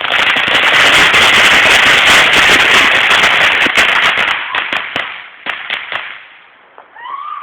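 A string of firecrackers going off in a loud, rapid crackling barrage, thinning to scattered single pops after about four and a half seconds.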